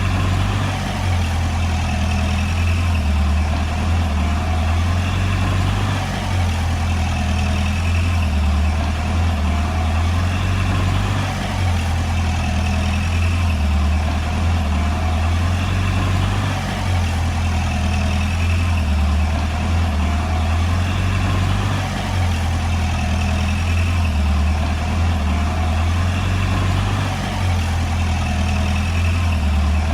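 Bulldozer's diesel engine running steadily, with small dips in level every few seconds.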